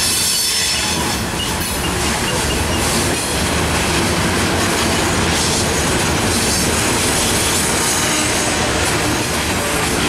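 Loaded rock hopper cars of a freight train rolling past close by: a steady, loud rumble and clatter of steel wheels on the rails.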